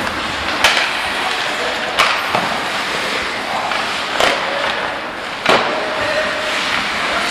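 Ice hockey play on the rink: skate blades scraping the ice under a steady rink din, cut by four sharp cracks of sticks, puck and boards.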